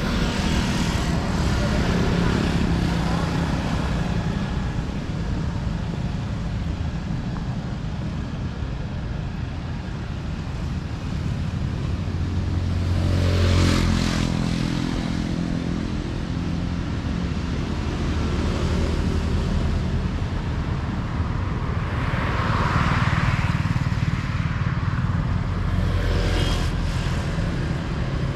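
City street traffic, mostly motorbikes running past, with one passing close and loudest about halfway through, its engine pitch sliding as it goes by.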